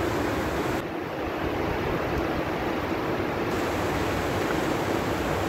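Steady rushing of a mountain stream flowing over rocks and boulders.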